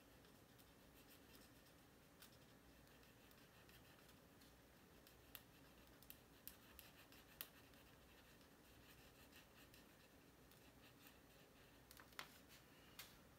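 Faint ticks and light scratches of a fine-tip Sharpie drawing short strokes on watercolor paper, with a few sharper taps in the middle and near the end, over near-silent room tone.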